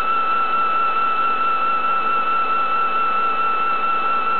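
Commutator turning machine running: a motor armature spins on its belt drive while the cutting tool turns the commutator, giving a steady high-pitched whine over a hiss.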